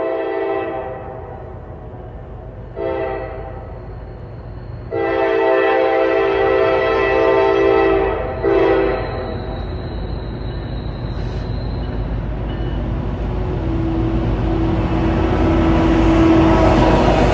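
Norfolk Southern freight locomotive's air horn sounding in separate blasts: one ending about a second in, a short one around three seconds, a long one from about five to eight seconds, and a short one right after. Then the diesel locomotives' engines and the wheels on the rails grow steadily louder as the train comes up and passes.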